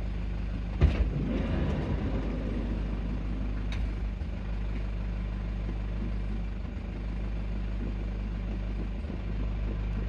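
Toyota HiAce KDH206V's 1KD-FTV four-cylinder turbodiesel idling with its diesel clatter, mixed with irregular jingling rattles like a washer shaken on a bolt, a sharp one about a second in and a fainter one near four seconds. The owner puts the rattle down to the idle hunting as the intake air and fuel quantity swing back and forth, with sludge in the EGR valve, intake manifold or throttle valve a suspected cause.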